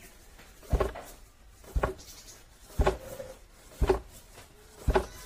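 Wooden pestle of a foot-operated rice-pounding beam (dheki) thudding down into rice in a floor mortar, five heavy thuds about a second apart, pounding the rice into flour.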